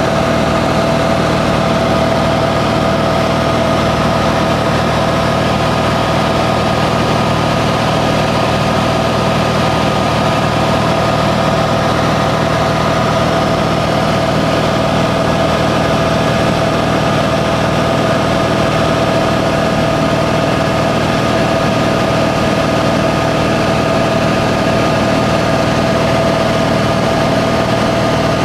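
Steady drone of a small plane's engine and propeller, heard from inside the cabin in level flight.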